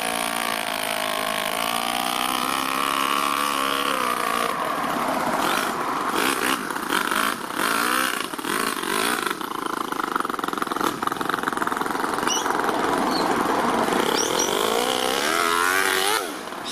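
The Toyan FS-L200 two-cylinder four-stroke nitro engine in an RC crawler is running under throttle as the truck drives, its revs rising and falling. Near the end the revs climb, then the sound cuts off abruptly.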